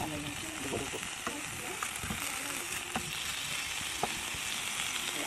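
Pork belly and chicken pieces sizzling as they begin to fry in a nonstick pan. A spatula turns them, with a few sharp taps and scrapes against the pan.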